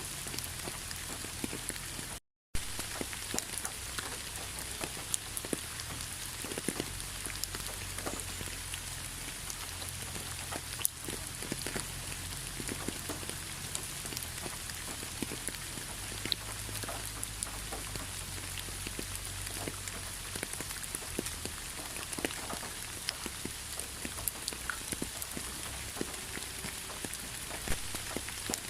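Steady rain falling, an even hiss with many separate drops ticking throughout. The sound cuts out completely for a split second about two seconds in.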